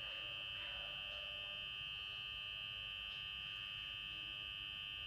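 Faint steady electrical hum with a constant high-pitched whine over it, unchanging and without any stitching rhythm.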